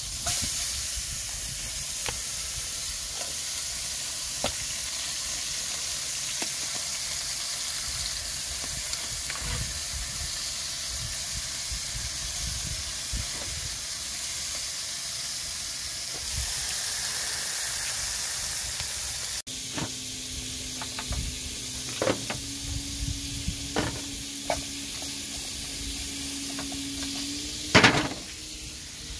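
Steak and shrimp sizzling in a frying pan on a portable gas camp stove, a steady frying hiss. After an abrupt cut about two-thirds through, the sizzle goes on with short metal tong clicks and a loud clatter near the end.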